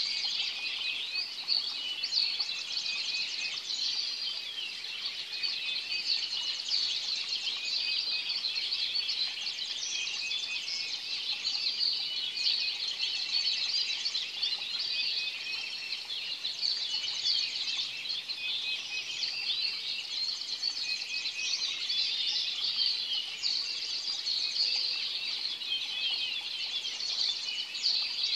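A predawn chorus of many birds chirping and twittering at once, a dense, unbroken tangle of high calls with no single song standing out.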